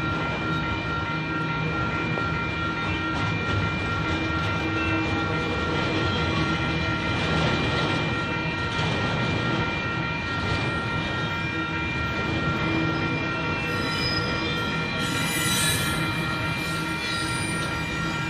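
Union Pacific double-stack intermodal freight cars rolling past on the rails: a steady rumble with steady high-pitched tones over it. A brief sharper high-pitched squeal comes about fifteen seconds in.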